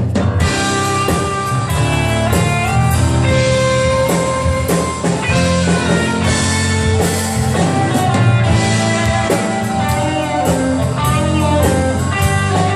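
A live band playing the instrumental blues intro to a song: guitar over bass and a drum kit with a steady beat.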